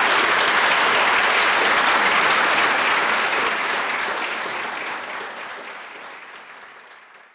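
Audience applauding, steady at first and then fading out over the last few seconds.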